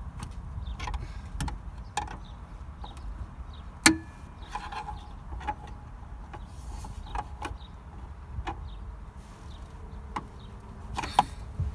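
Plastic dash cup holder of a 1997–2003 Ford F-150 being fitted back into its tracks: scattered plastic clicks and knocks, with one sharp knock about four seconds in.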